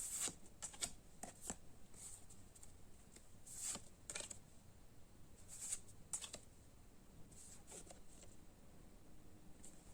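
Pokémon trading cards being handled and slid against one another: short, soft, dry swishes at irregular intervals, a few more closely spaced in the first half and sparser later.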